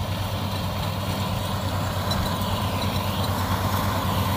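Kubota DC-60 rice combine harvester's diesel engine running steadily as the machine cuts standing rice, growing a little louder near the end.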